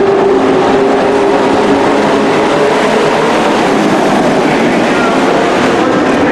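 A field of dirt-track racing pickup trucks running flat out past the grandstand, many engines blending into one loud, steady noise.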